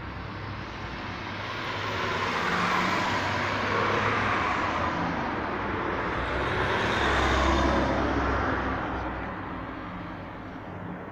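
Road traffic passing the bus stop: tyre and engine noise swells as one vehicle goes by about two seconds in, then a louder one with a low rumble peaks around seven to eight seconds in and fades away.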